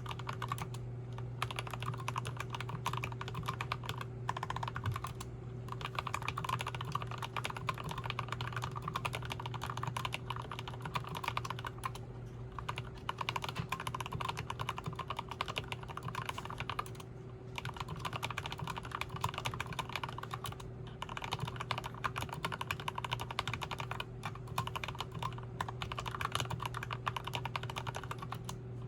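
Custom 60% mechanical keyboard (Tokyo60) fitted with Krytox 205g0-lubed turquoise Tealios linear switches, typed on quickly and continuously, with a few short pauses along the way.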